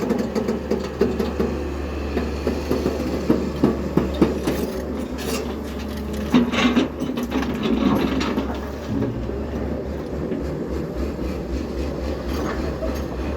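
Diesel engine of an earthmoving machine running steadily, with irregular clanks, rattles and scraping from digging and loading mud.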